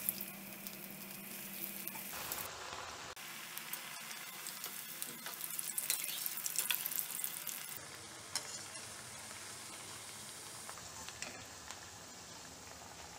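Masala-coated taro (arbi) pieces deep-frying in hot oil in a steel kadai: a steady sizzle, loudest around six to seven seconds in, with a few light clicks later on.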